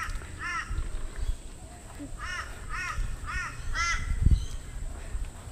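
A crow cawing: one call, then a run of four calls about half a second apart. Low thumps of footsteps walking on a path sound underneath.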